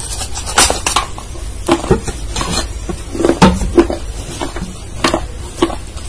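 Close-miked eating sounds: irregular wet mouth smacks and sticky clicks as soft, cream-coated food is bitten and chewed, over a low steady hum.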